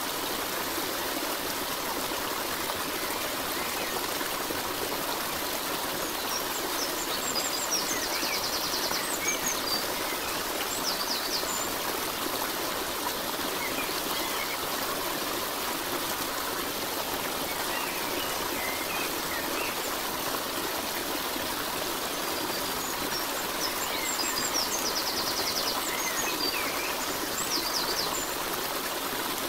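Steady rush of a running stream, with birds chirping and trilling now and then. The same cluster of bird calls comes round twice, about 17 seconds apart, as in a looped nature recording.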